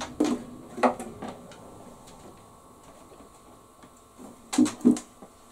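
Handling noise: a few soft knocks as an acoustic guitar is handled, then quiet, then two short louder knocks in quick succession near the end.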